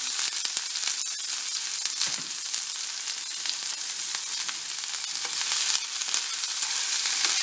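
Freshly added chopped onions sizzling in hot oil in a frying pan: a steady hiss dotted with fine crackles and pops.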